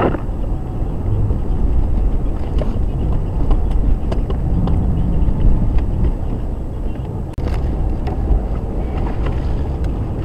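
A Jeep Grand Cherokee WJ's engine running steadily at crawling speed, heard from inside the cab, as the truck picks its way over a muddy, rocky trail. Scattered knocks and rattles come from the rough ground, and a windshield wiper sweeps across the glass at the very start.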